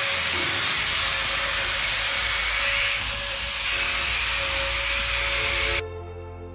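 A workshop power tool runs steadily, a loud even hiss with a faint high whine held at one pitch, then cuts off suddenly near the end. Soft music comes in after it stops.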